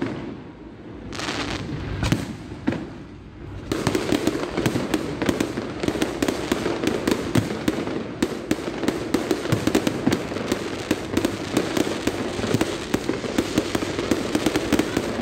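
Aerial fireworks going off: a few separate bangs in the first few seconds, then, about four seconds in, a dense, rapid run of bangs and crackling sets in and keeps going.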